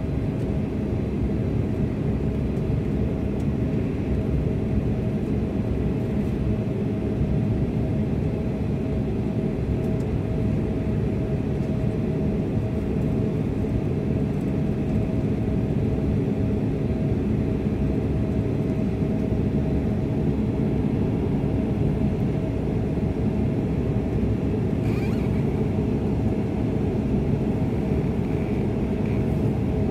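Cabin noise of a Bombardier CRJ-200 regional jet climbing after takeoff. A steady drone of its rear-mounted jet engines and the airflow, with a steady hum tone running through it.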